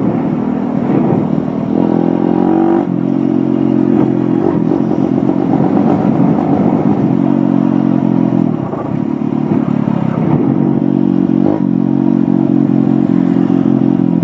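Dirt bike engine running at speed, its pitch holding fairly steady, with a few brief dips and changes in revs along the way.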